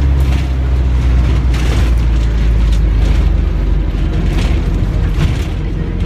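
Cabin of a Hong Kong minibus on the move: a steady deep engine and road rumble, with brief rattles and knocks from the bodywork every second or so.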